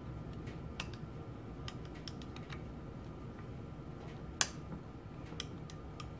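Long screwdriver turning a screw into the steel spring plate of a Linotype linecaster's knife block: scattered small metallic clicks of the blade in the screw slot, with one sharper click a little over four seconds in, over a steady low hum.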